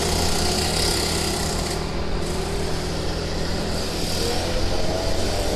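Trail motorcycle engine running steadily, its pitch rising about four seconds in as it revs up.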